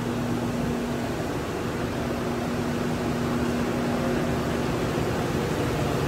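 Steady rush of air from the grow room's ductless air conditioning and circulation fans, with a low steady hum that drops out for about a second, a second in.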